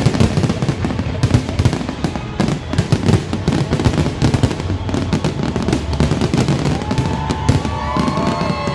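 Fireworks display: a dense, irregular run of bangs and crackles, with whistling tones gliding in pitch near the end.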